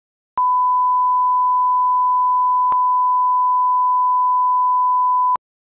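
Test tone played with SMPTE colour bars: a single steady beep at one pitch lasting about five seconds, with a faint click where it starts, one midway and one where it stops. It is the line-up tone used to set audio levels at the head of a video tape.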